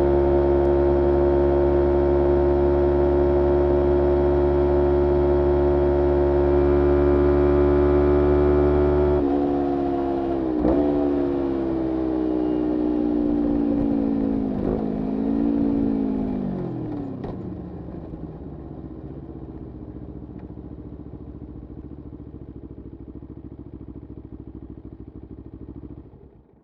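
2011 Kawasaki Ninja 250R's parallel-twin engine, breathing through a full Graves racing exhaust, holds steady high revs. About nine seconds in the sound changes suddenly and the pitch falls in two steps, settling to a low idle, and the engine cuts off near the end.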